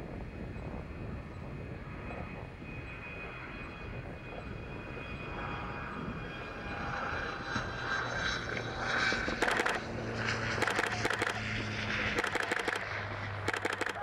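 Fixed-wing aircraft engine droning steadily, getting louder about halfway through. Near the end come several short spells of rapid buzzing pulses.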